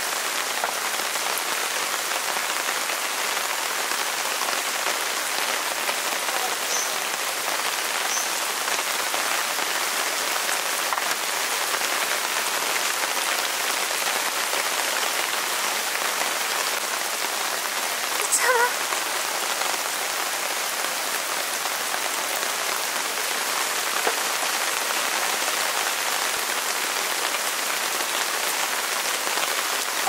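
Heavy rain falling steadily on a camping tarp and the ground around it, a dense, even hiss of drops. A short pitched sound stands out briefly a little past halfway.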